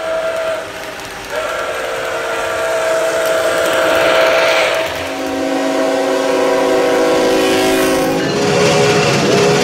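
Train whistle blowing a series of long blasts over the running noise of a train. It gives a short blast, then one of about three and a half seconds, then a deeper chord of several notes for about three seconds, then two shorter blasts near the end.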